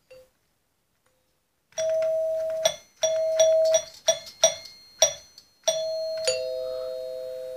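Dual-tone ding-dong door chime, its metal tone bars struck one after another: the high E bar rings about seven times, several of the rings cut short, then near the end a high E followed by the low C ring out together and slowly fade.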